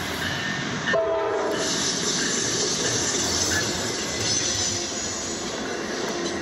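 Train running past with a steady rolling noise, and a short horn note of several tones sounding together about a second in.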